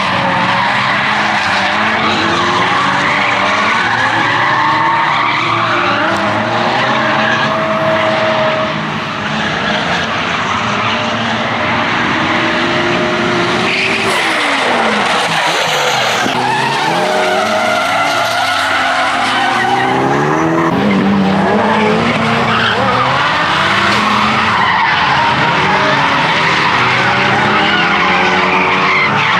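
Drift cars on track: engines revving up and down with tyres squealing and skidding. At times more than one engine can be heard at once, their pitches rising and falling against each other.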